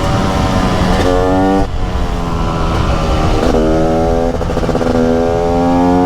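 Two-stroke motorcycle engine accelerating: its pitch climbs about a second in, drops away sharply as the throttle shuts just before two seconds, then climbs again slowly from about three and a half seconds on.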